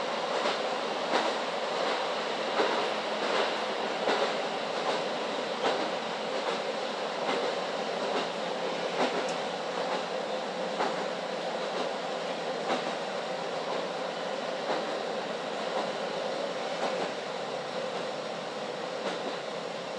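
In-cabin running sound of a JNR KiHa 40 series diesel railcar under way: a steady rumble of engine and wheels. The wheels clack sharply over rail joints, at first under a second apart and then less often in the second half.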